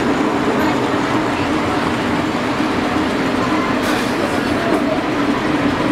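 S-gauge model trains running on the layout's track: a steady rumble of motors and wheels, with a brief hiss about four seconds in.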